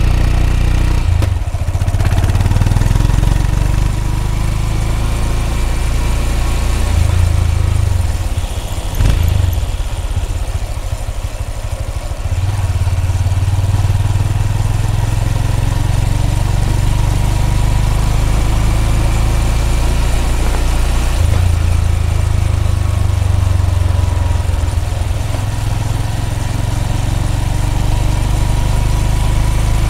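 Honda CB200X single-cylinder engine's exhaust under way on the road, a low thrum that eases and picks up again several times as the throttle changes, with a brief sharper sound about nine seconds in.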